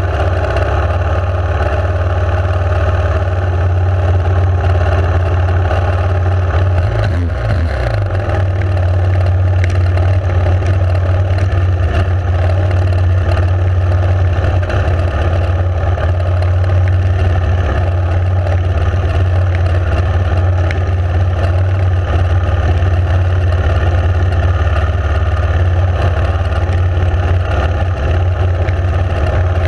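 Enduro motorcycle engine running steadily while riding, its pitch briefly dipping and recovering about seven seconds in.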